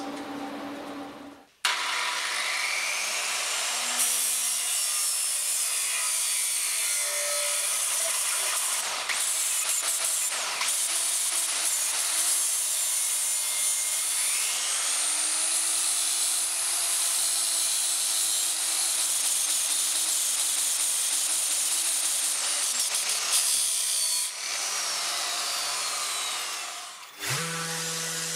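Large angle grinder grinding the sheet-steel axe head, starting about a second and a half in, its motor pitch sagging and rising as the disc is pressed on and eased off. Near the end it gives way to a random orbital sander running with a steady hum.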